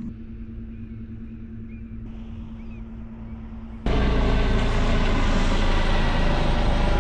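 A boat motor hums steadily and fairly quietly, then about four seconds in a much louder engine drone starts abruptly, with a heavy low rumble and steady pitched tones.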